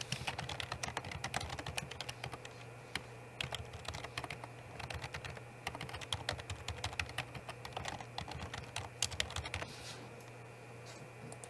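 Typing on a computer keyboard: bunches of rapid key clicks with short pauses between them, stopping about two seconds before the end.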